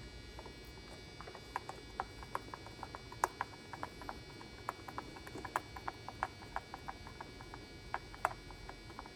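Small set screw being driven by hand with a screwdriver into the plastic housing of a Shark Navigator vacuum's power nozzle: a string of faint, irregular clicks and ticks.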